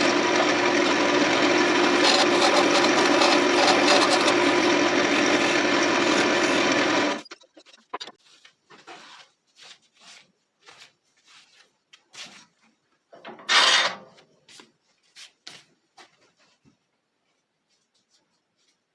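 Wood lathe running while a turning tool cuts the spinning mulberry blank, a steady noise that stops abruptly about seven seconds in. Light clicks and knocks follow, with one brief louder scrape about halfway through.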